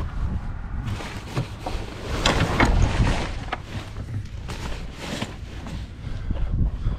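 Wind buffeting the microphone, with scattered clicks and rustles as a hand rummages among cables and gear in a boat's deck storage compartment, busiest from about two to five seconds in.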